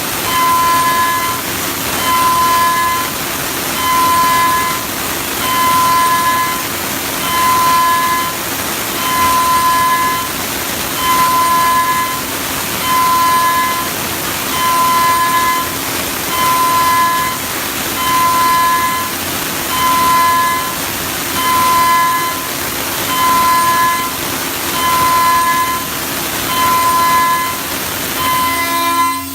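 High-speed CNC milling spindle with an HSK-E25 tool holder cutting on an ISEL CNC mill, following a SolidCAM iMachining toolpath. A high whine swells and fades at an even rate, about once every 1.7 seconds, over a steady hiss and a low constant hum.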